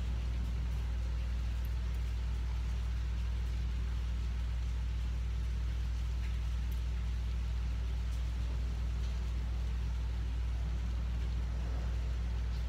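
A steady low hum, unchanged throughout, with a few faint soft ticks.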